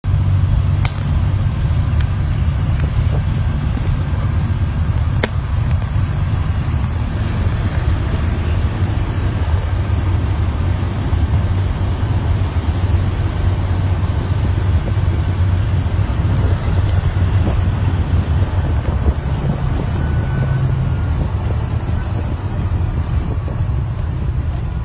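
Interior of a 2005 Thomas FS-65 school bus under way: the diesel engine runs with a steady low drone over road and tyre noise. Two sharp clicks come about one and five seconds in.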